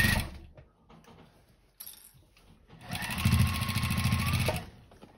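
Sewing machine with a walking foot stitching through heavy layers of denim and flannel: a short burst at the start, then a run of about a second and a half with a rapid needle rhythm over the motor's whine. The layers are not feeding through well.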